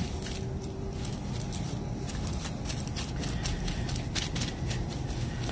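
A paper towel dabbing and rubbing pork belly skin dry inside an aluminium foil tray, making a run of irregular soft crinkles and rustles.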